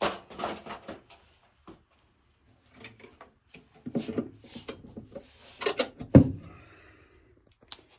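Scattered knocks, rattles and scrapes from hands working at a drop-ceiling grid, the loudest a sharp knock about six seconds in.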